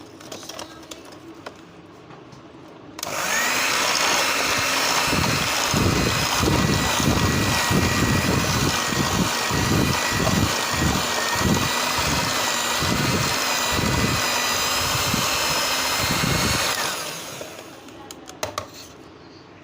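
Electric mixer beating sugar and oil until creamy. A steady motor whine starts about three seconds in, with irregular low thumps through the middle, then runs down and stops a few seconds before the end.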